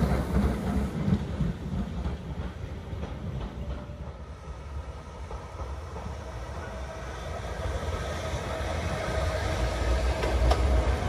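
1960s electric railcars of the Grütschalp–Mürren line running on the track. The rumble of one railcar fades as it runs away. A second railcar then draws close and passes, its rumble growing louder, with a few clicks near the end.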